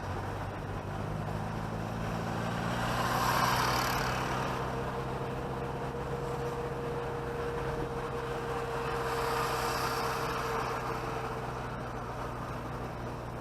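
Chevrolet Chevette driving along a city street, its engine running at a steady speed, heard from inside the car. Road and traffic noise swells twice, about three seconds in and again near ten seconds.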